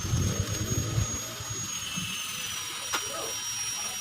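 A small high-speed motor whining steadily, its pitch sagging slightly in the second half. Some low rumbling dies away about a second in, and there is a single sharp click about three seconds in.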